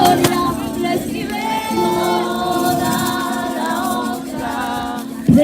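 Singing of a Spanish-language Christian worship song: voices hold long notes between the lines of the chorus.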